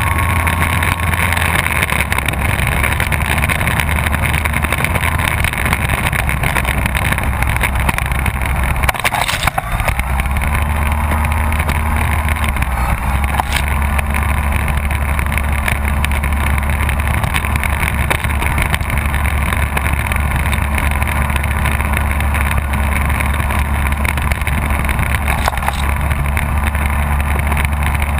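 FunCub RC plane's motor and propeller running steadily as the model taxis on rough asphalt, heard from a camera on the airframe, with a low rumble underneath. The motor eases off briefly about nine seconds in, then its pitch climbs back.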